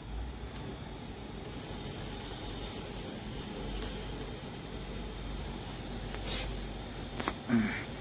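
R-134a refrigerant hissing through the manifold gauge set and charging hose into a refrigerator's sealed system while gas is being added, the hiss widening and getting brighter about a second and a half in, over a low steady hum.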